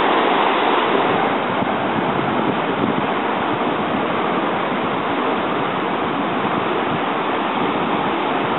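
Flash-flood torrent of muddy water gushing through a dry creek bed: a loud, steady rush of churning water.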